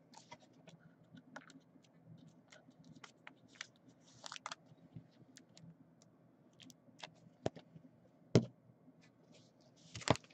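Faint scattered clicks and taps from trading cards and a plastic card holder being handled on a table, with a sharper click about eight seconds in and a short crinkle of a foil card pack near the end.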